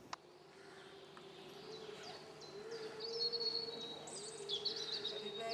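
Forest songbirds singing: high chirps, quick falling notes and trills that grow louder from about two seconds in, over a faint steady low hum.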